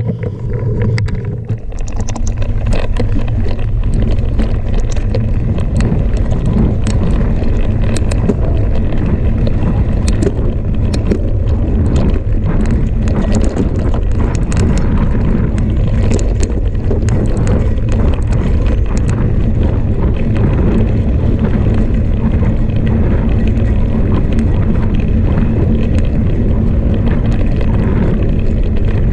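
A Specialized Enduro Comp mountain bike descending a dirt and gravel trail at speed: wind buffets the on-bike camera's microphone with a steady rumble, and the knobby tyres roll over loose stones amid frequent clicks and rattles from the bike. The noise builds over the first couple of seconds as the bike picks up speed, then holds.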